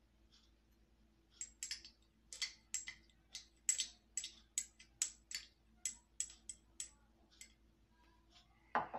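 A bar measure tapped repeatedly on the rim of a glass mason-jar mug to shake out the last thick peach purée: a faint, uneven run of light clicks, about three a second.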